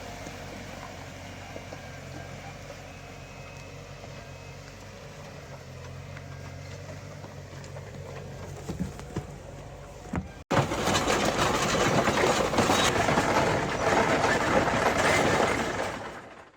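A tractor engine running steadily at a low, even hum. About ten seconds in it cuts off suddenly and gives way to a much louder rushing noise, which fades out at the end.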